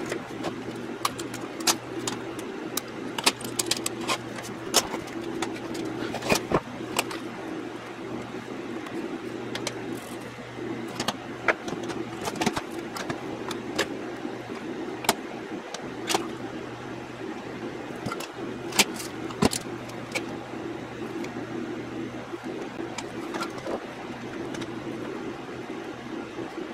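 Bench work while a chip is soldered onto a circuit board: a steady low hum with frequent sharp clicks and taps from tools and hands handling the board.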